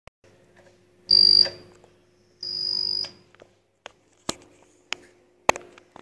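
Lift call button beeping: two high-pitched beeps, a short loud one about a second in and a longer, quieter one after it, followed by a few sharp clicks.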